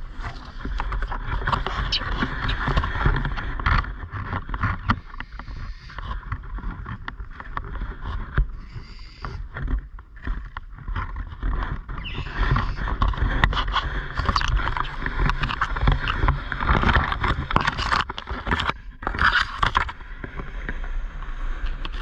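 Wind rumbling over the microphone, uneven in strength, with leaves rustling and crackling.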